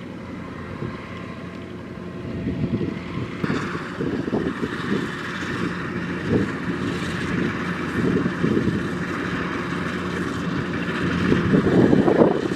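Kubota DC-105X rice combine harvester running with a steady engine drone and a rough mechanical rattle over it. The noise grows louder and fuller about three and a half seconds in, and again near the end.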